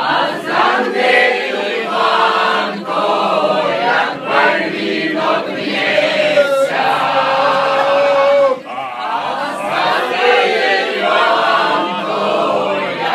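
A group of men and women singing a song together, with a long held note that breaks off about two-thirds of the way through.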